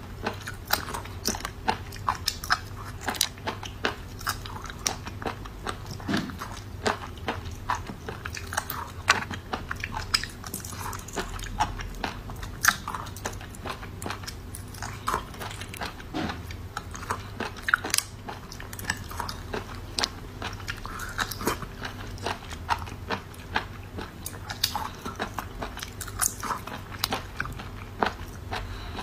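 Close-up eating of raw mud snails: irregular sharp crunches and clicks of their thin shells, several a second, with chewing.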